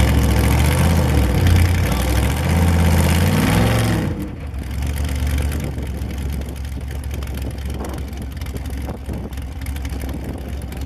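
Ultra4 off-road race car engine revving up and down in pitch for about four seconds, then dropping suddenly to a quieter, steady low idle.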